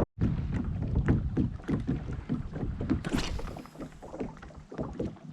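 Water splashing and irregular small knocks and taps around a fishing kayak on the water, with a brief hissing splash about three seconds in.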